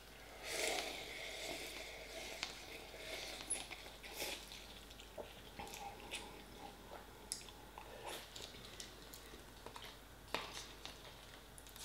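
A person slurping instant noodles from a pot noodle cup, with the loudest slurp about half a second in, then chewing with scattered small clicks and wet sounds.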